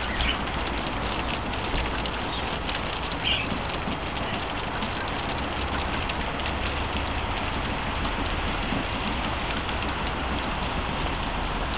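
Heavy rain falling: a steady hiss dotted with many close individual drop hits, over a low rumble.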